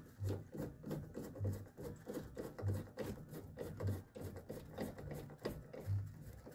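Hand screwdriver turning a window motor mounting screw into a truck's steel inner door panel: light clicking and rubbing with each turn, and a soft low thump about every second and a quarter.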